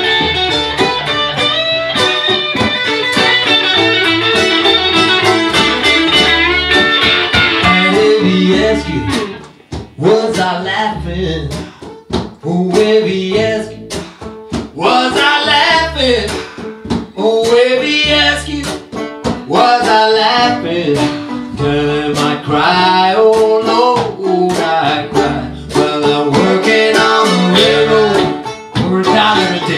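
A small acoustic blues band playing with guitars, upright bass and banjo. The playing is full for the first nine seconds or so, dips briefly, then goes on more sparsely under a lead line with bending, gliding notes.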